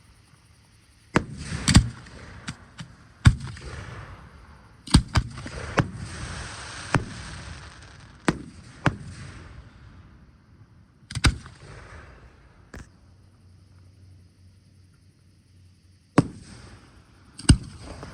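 Fireworks display: aerial shells bursting in sharp, irregular bangs, some in quick pairs, with crackling and hissing between bursts. The bangs fall quiet for a few seconds before two more loud reports near the end.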